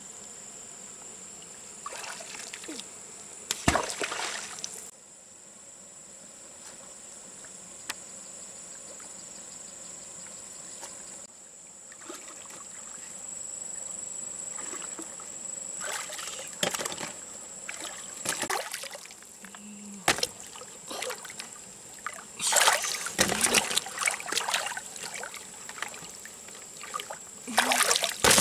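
Shallow lake water sloshing and splashing as a wading person gropes under the surface with her hands, in irregular bursts a few seconds in and repeatedly through the second half. A steady high-pitched insect drone runs underneath.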